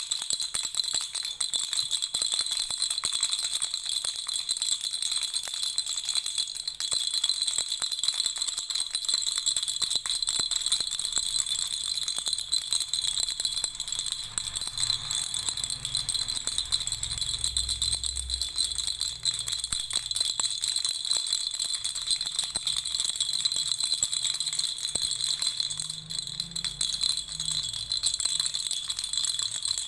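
Lollipop-shaped baby rattle shaken continuously: a dense, steady jingling rattle made of many quick small clicks.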